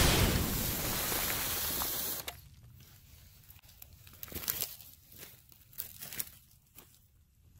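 Radio-controlled truck spinning its tires hard in loose dirt right beside the microphone for about two seconds as it flips over, then scattered crackles in the dry leaves and debris.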